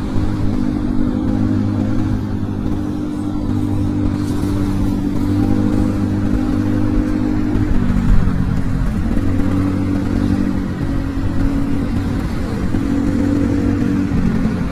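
Motor-scooter engine running under way in traffic, easing off and dropping in pitch about eight seconds in, then climbing again as it picks up speed. There is a brief knock just after the dip.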